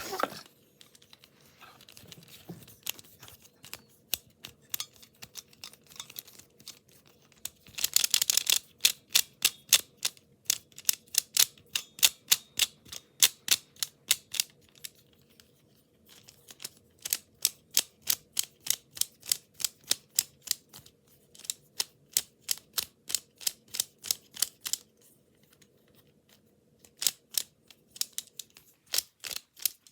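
Rubik's-style puzzle cube being twisted, its layers clicking in quick runs of sharp clicks, several a second, with short pauses between runs. The clicks are faint at first and grow louder about a quarter of the way in.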